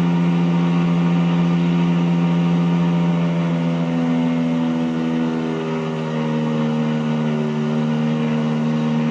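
Mazda-based single-rotor rotary aircraft engine running steadily, with its note shifting in pitch about halfway through and a brief dip in level around six seconds in, over tape hiss.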